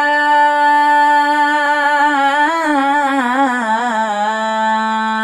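A single singing voice holds one long note of a nasheed, with no instruments. Midway the pitch wavers up and down in a vocal ornament, then it settles on a slightly lower steady tone near the end.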